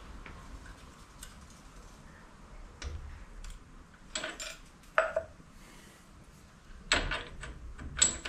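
Steel tooling being handled at a metal lathe's quick-change tool post: a few sharp metal-on-metal clinks and clanks with a short ring, the loudest about five, seven and eight seconds in.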